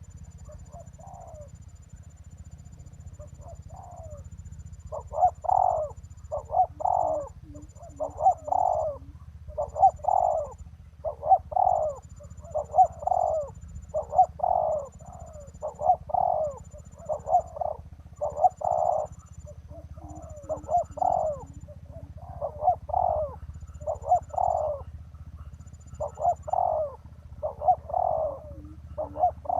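Spotted doves cooing: a long series of coo phrases, soft at first, then loud and repeated about once a second from about five seconds in.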